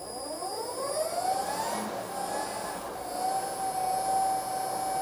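Nova Viking bench drill press's DVR direct-drive motor switched on and spinning up the chuck: a whine that rises in pitch over about the first two seconds, then settles into a steady hum as it runs at speed.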